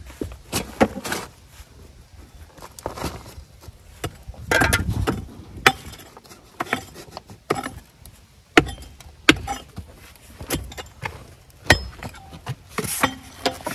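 A hand hammer striking fieldstone, heard as a string of sharp, irregular knocks. A shovel scrapes into dirt and gravel about four and a half seconds in.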